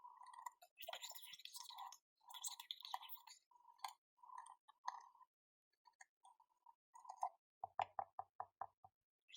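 Quiet ASMR handling of an antique keepsake box: a series of short rubbing or scratching strokes and a couple of brief rustles, then near the end a quick run of about seven taps, as the box is readied for opening.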